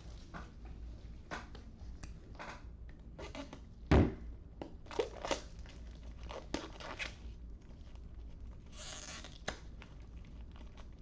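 Plastic packaging being crinkled and torn, with scattered clicks and knocks, the loudest knock about four seconds in, and a longer stretch of rustling near the end.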